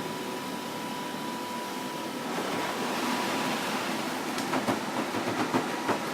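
Electric air blower running steadily with a thin whine while inflating an inflatable. About two seconds in, the rush of air gets louder, and from about four seconds on comes a run of irregular clicks and rattles.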